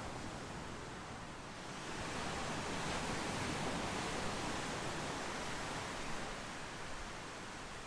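Ocean surf washing onto a beach: a steady rush of noise that swells about two seconds in and eases off near the end.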